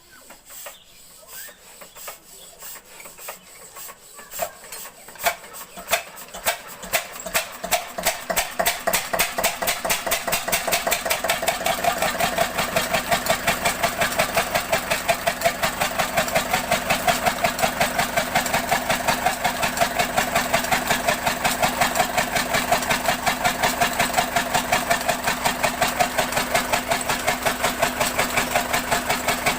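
Field Marshal Di16 single-cylinder diesel engine starting up. Slow, faint firing strokes quicken and grow louder over the first ten seconds or so, then settle into steady running with a regular, rapid beat.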